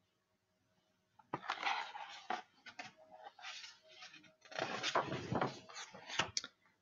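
Pages of a picture book being handled and turned: paper rustling and a few soft clicks and knocks, starting about a second in, with a longer rustle near the end.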